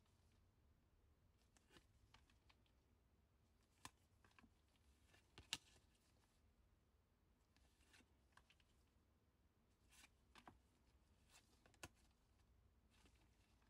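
Near silence broken by faint clicks and soft rustles of trading cards being slid past one another in latex-gloved hands, the sharpest click about five and a half seconds in.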